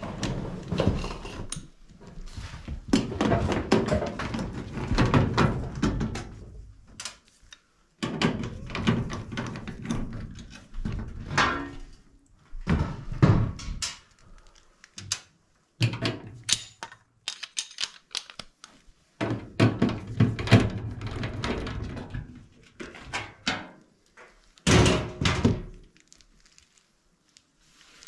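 Sheet-metal access panels of an Amana gas furnace being pulled off and handled: irregular thunks, clanks and rattles of thin steel, in clusters with short pauses between them.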